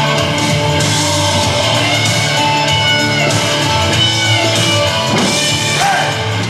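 Country-rock song with a guitar-led stretch and no words in it.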